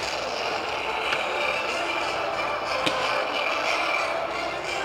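Firework fountains spraying sparks with a steady hissing crackle, broken by a couple of sharp pops about one and three seconds in.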